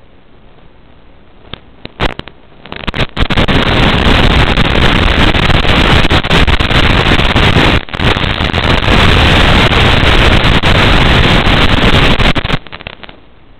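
Loud white-noise static from an analog FPV video receiver as the drone's video link breaks up, crackling in about two seconds in, dropping out for a moment near the middle, and cutting off about a second before the end.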